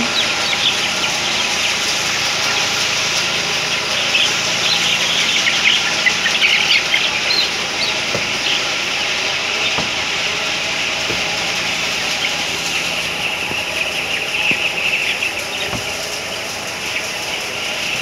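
A large flock of 12-day-old broiler chicks peeping all at once, a dense chatter of short high chirps over the steady rushing hiss of the tunnel-ventilated house's fans.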